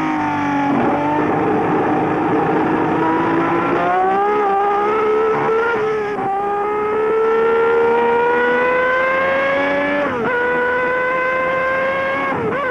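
Brabham-Alfa Romeo flat-12 Formula One engine at high revs, heard onboard: its pitch climbs in long pulls and drops sharply four times.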